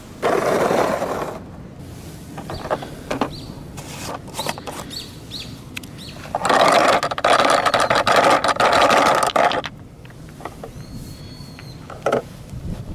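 A homemade plastic-bottle toy car on yellow plastic wheels rolling over gravelly ground, a loud gritty rolling noise lasting about three seconds in the second half. Before it there is a short gritty scrape at the very start and a few scattered clicks.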